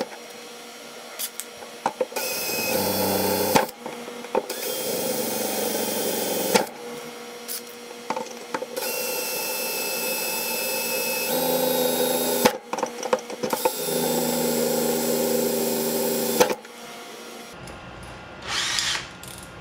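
Cordless drill boring pilot holes through a 3/4-inch square aluminum tube. It runs in several bursts of a few seconds each, with short pauses and clicks between them.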